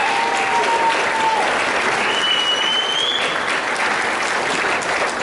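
Audience applauding in a large hall, a dense steady clatter of many hands clapping, with a high whistle about two seconds in.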